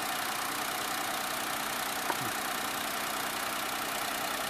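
2004 Honda Life's small three-cylinder kei-car engine idling steadily.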